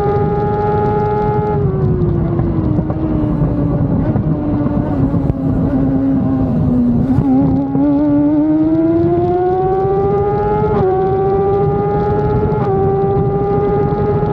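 Onboard sound of a Stohr WF1's BMW-powered engine at high revs, around 12,000 rpm. Its pitch falls steadily for several seconds as the car slows to about 60 mph, then climbs back up, with two brief hitches in the last few seconds. A low wind rumble buffets the microphone underneath.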